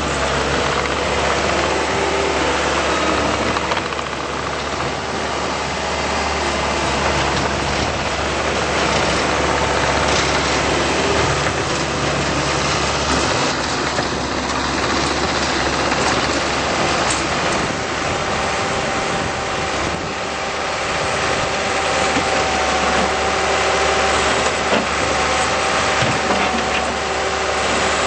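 Diesel engine of a 2008 Bobcat T190 tracked skid steer loader running steadily.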